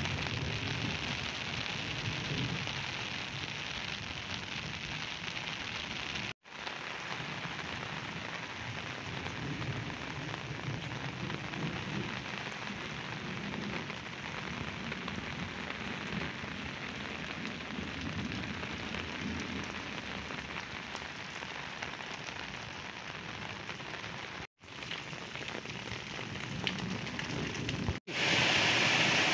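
Heavy rain falling steadily, a continuous hiss, broken by a few abrupt edit cuts. Near the end it gives way to a louder rush of rainwater pouring down a concrete drain channel.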